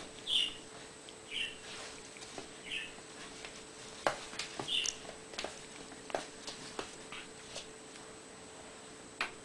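A poodle puppy and a Japanese Spitz wrestling in play: short high-pitched squeaks, about five of them, with a run of light sharp clicks and scuffs through the second half.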